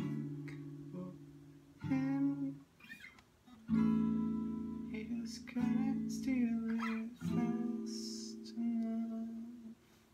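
Acoustic guitar played in slow strummed chords, about six in all, one every two seconds or so, each left to ring and fade.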